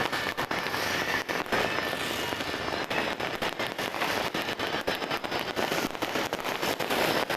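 New Year fireworks and firecrackers going off in a dense, continuous barrage of many overlapping pops and bangs.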